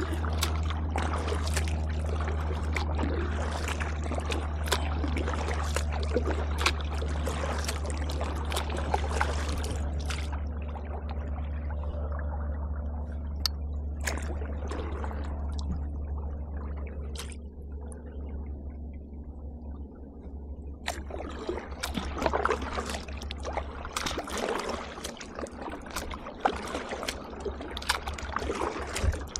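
Kayak paddle strokes: water splashing and dripping off the paddle in irregular bursts, with a lull around the middle. A steady low rumble runs underneath and stops near the end.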